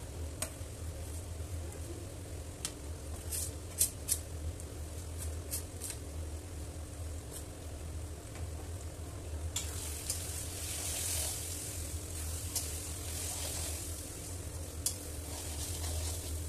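Onion-tomato masala sizzling in a metal kadai over a steady low hum, with a few sharp spoon clicks in the first half as spice powders are tipped in. From about ten seconds in, a spatula stirs the masala and the sizzle grows louder.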